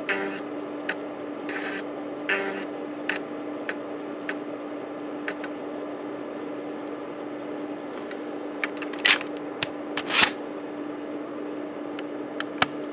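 Panasonic JU-257A135P 3.5-inch floppy drive, top cover off, running under a diagnostic test: the spindle motor hums steadily while the stepper-driven head seeks between tracks in irregular single clicks and short buzzing runs, the two loudest about 9 and 10 seconds in.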